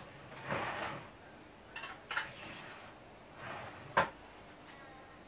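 Dishes and cutlery being handled on a kitchen counter: a brief rustle, a couple of light clicks, then one sharp clink about four seconds in, the loudest sound.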